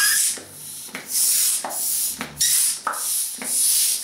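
Hand balloon pump being worked in strokes, about one a second, each giving a short rush of air as it inflates a 260 modelling balloon inside a clear 12-inch latex balloon.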